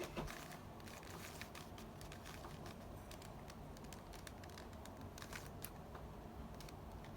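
Plastic Rubik's cube being twisted by hand, its layers giving faint, irregular clicks, with a sharper click just after the start.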